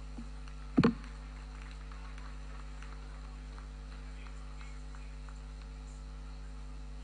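Steady low electrical hum, with one brief thump a little under a second in.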